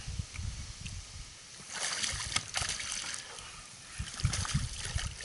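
Water splashing and sloshing at the side of a small boat, with knocks and handling noise, as a hooked pike is brought in. Wind rumbles on the microphone throughout.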